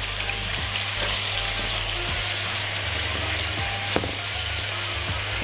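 Raw chicken-breast strips sizzling steadily in hot butter and olive oil in a nonstick wok, being stirred with a silicone spatula as they start to sauté.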